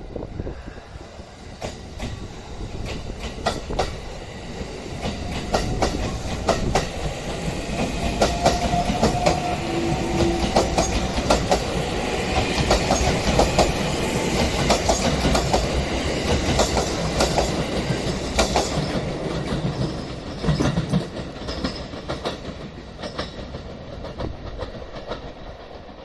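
Sunrise Izumo overnight sleeper train, a 285 series electric multiple unit, passing close by as it picks up speed after leaving the station, its wheels clattering over the rail joints. The clatter swells a few seconds in and fades near the end.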